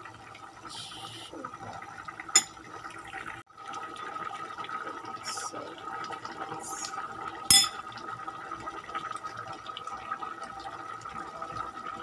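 A pot of tomato-based beef stew boiling, with a steady bubbling. A spoon clinks sharply against the pot twice, about two and a half and seven and a half seconds in.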